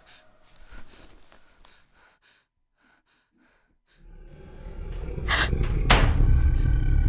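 Tense horror-film sound: after a quiet stretch, a low deep drone swells up from about four seconds in. Near the end come two short, sharp gasping breaths.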